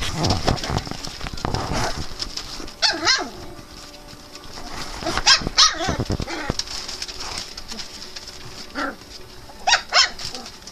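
24-day-old English Shepherd puppies yipping and barking in three short, high-pitched bouts, with rustling and scuffling between them.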